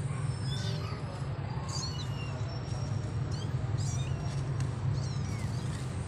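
Young kittens mewing, many short high-pitched calls that slide downward, several a second and overlapping, over a steady low hum.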